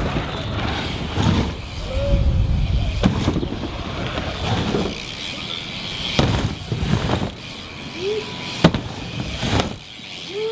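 BMX bike tyres rolling and pumping through a wooden ramp's transitions, a rushing that swells and fades every second or two. Three sharp knocks from landings on the ramp come about three, six and nine seconds in, the last the loudest. Brief high calls or shouts are heard now and then.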